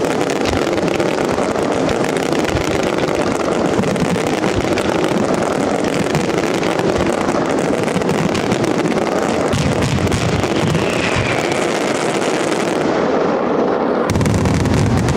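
Fireworks display firing without pause: a dense, rapid crackle of many overlapping bangs from comets and aerial shells. About fourteen seconds in it turns into a heavier, deeper barrage as ground-level salutes go off in a wall of white flashes.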